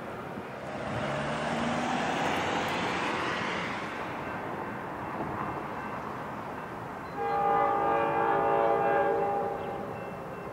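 Horn of an approaching Metra F40PH-2 diesel locomotive sounding one steady chord-like blast of about three seconds, starting about seven seconds in. Before it, in the first few seconds, a train's rushing running noise swells and fades.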